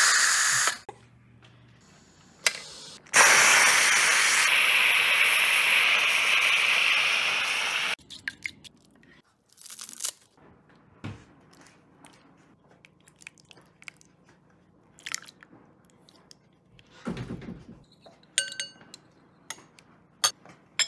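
Instant Pot Pro Crisp pressure cooker venting steam through its release valve: a short loud hiss at the start, then a longer hiss of about five seconds that cuts off abruptly, the quick release of pressure after cooking. Afterwards quiet snips and taps of scissors cutting cilantro over the pot, and a few light clinks of spoons in ceramic bowls near the end.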